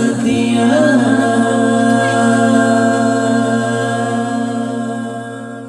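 Man singing a nasyid solo into a microphone: a short ornamented run, then one long held note that fades out near the end.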